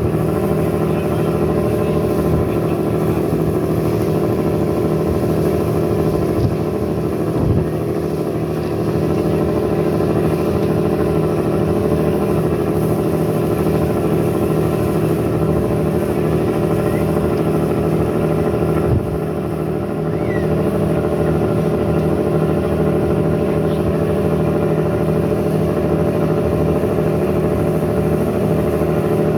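A river passenger boat's engine running steadily as a constant drone, with a brief knock about seven seconds in.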